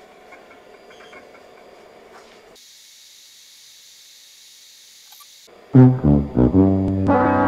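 A "sad trombone" comic sound effect: a few short brass notes, then a long note sliding down in pitch, starting about two-thirds of the way in and loud. Before it there are only a few seconds of faint hum and hiss.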